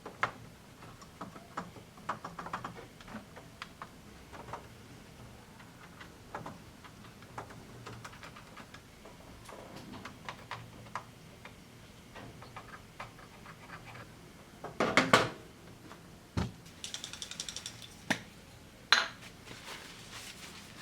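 Scattered clicks and light clatter of small plastic and metal parts being handled, with a louder cluster of knocks about fifteen seconds in and a short scratchy hiss soon after.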